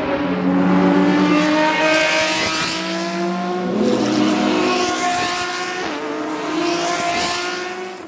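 Lamborghini Essenza SCV12 track cars' naturally aspirated V12 engines at high revs as the cars pass one after another, the sound swelling and fading several times. It dies away at the very end.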